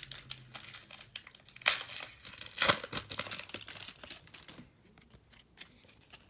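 Foil trading-card pack wrapper crinkling and tearing as it is opened by hand, with sharp loud rustles about two and three seconds in, then quieter handling.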